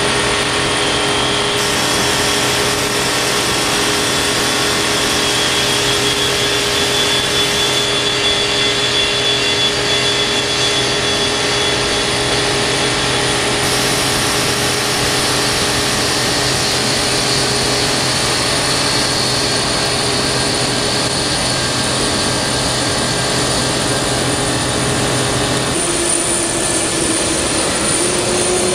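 Boeing 737 jet airliner taxiing past, its engines running steadily at low thrust with a high whine over a low hum. Near the end the sound changes to another jet airliner's engines as it taxis by.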